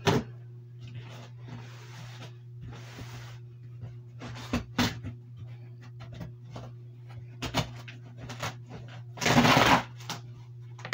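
A cardboard box being opened by hand: soft scraping and clicking handling noises, then, about nine seconds in, a loud rip of about a second as the box is torn open. A steady low hum sits underneath.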